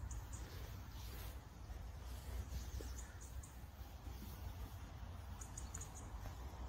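Quiet outdoor ambience: a steady low rumble of wind on the microphone, with faint, short high-pitched chirps coming in small clusters near the start, about three seconds in, and near the end.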